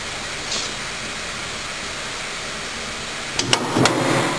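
Steady hiss, with a few sharp metal clacks and knocks about three and a half seconds in as the pneumatic drawer clamp's adjustable blocks are handled.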